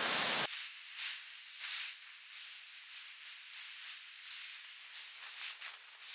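Steady hiss of breaking ocean surf with no low rumble, swelling and easing slightly. About half a second in it changes abruptly from a fuller noise to this thinner hiss, as at an edit.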